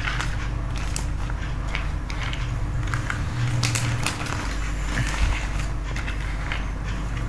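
Plastic toys and packaging being handled: scattered light clicks and crackles, with a few sharper knocks.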